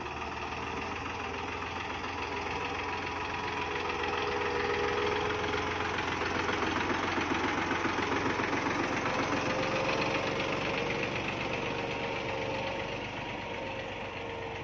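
Deutz-Fahr 3040E 40 HP tractor's diesel engine working under load as it tows a fully loaded trolley. It grows louder as it draws close, peaking about halfway through, then fades as it passes.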